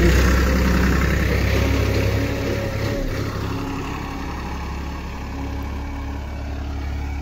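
Farmtrac 35 tractor's diesel engine running steadily as it pulls a seed drill through the soil, growing quieter about three seconds in as the tractor moves away.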